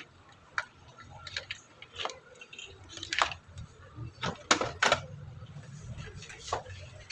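Scattered light clicks and taps of small hard parts being handled, with two louder ones about four and a half seconds in. A faint low hum sits underneath from about the middle on.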